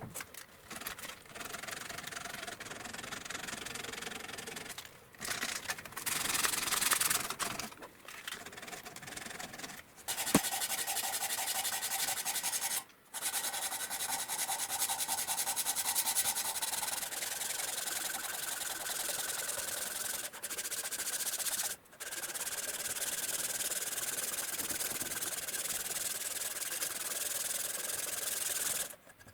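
Abrasive sanding on a knife being made, in long steady passes broken by a few short pauses.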